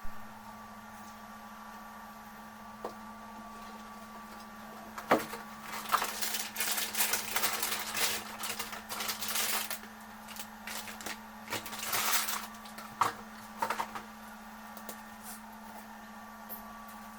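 A steady low electrical hum with irregular clicks, taps and short rustles, clustered between about five and fourteen seconds in.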